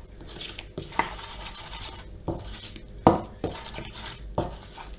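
A utensil stirring flour into yeasted water in a stainless steel bowl, mixing a bread sponge. Soft scraping is broken by irregular clinks of the utensil against the metal bowl, the loudest about three seconds in.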